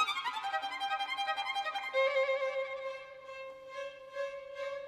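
Background music led by a violin: a quick falling run of notes, then one long held note from about two seconds in.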